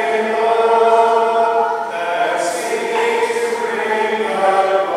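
A church congregation singing together in slow, held notes.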